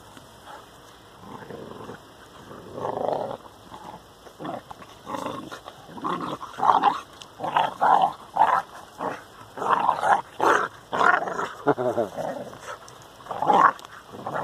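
Two young Heidewachtel × English Pointer cross dogs growling at each other while play-fighting, in a run of short, rough growls. The run starts about two seconds in and gets louder and busier in the second half. These are play growls from rough-and-tumble wrestling, not aggression.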